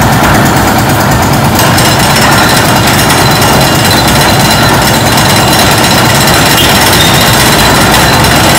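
Concrete mixer with a built-in hoist winch running loud and steady while it hauls the material bucket up the lift tower. A thin high whine joins about one and a half seconds in.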